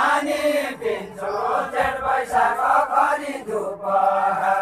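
A group of voices singing a Deuda folk song together in a drawn-out, chant-like melody with long held notes.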